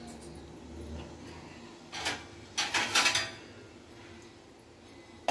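Steel and aluminium kitchen pots and utensils being handled: a short clatter about two seconds in, then a longer clatter about half a second later.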